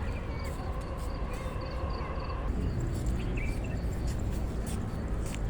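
Wind rumbling on the microphone, with a vehicle engine running that cuts off about two and a half seconds in, and birds chirping now and then.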